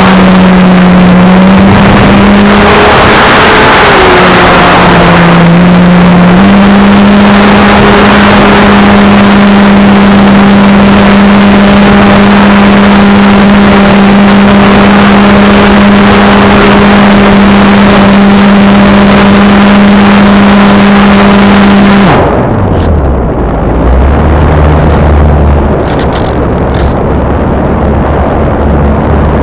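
RC airplane motor running at high throttle: a loud, steady drone over a rush of noise, its pitch shifting a few times in the first seconds. About 22 seconds in the throttle is cut: the pitch drops sharply to a low idle and the noise falls off.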